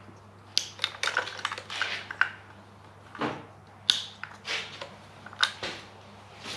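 Wiring harness being handled and tucked in around an engine: irregular sharp plastic clicks and short rustles of wires and connectors being pushed into place, about half a dozen distinct clicks.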